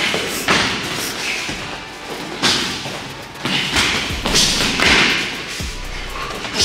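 Strikes landing in MMA sparring: gloved punches and kicks hitting, heard as about six sharp thuds at uneven intervals.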